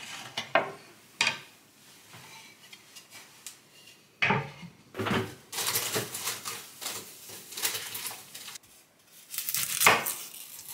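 Kitchen handling sounds: separate knocks and clatters as items are picked up and set down on the counter, with a busier run of rustling and clatter in the middle. Near the end comes the loudest knock, as a kitchen knife cuts through an onion onto a wooden cutting board.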